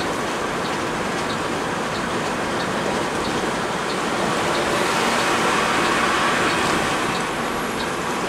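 Steady rushing noise of a moving coach on the road, swelling a little a few seconds in, with a faint tick about twice a second.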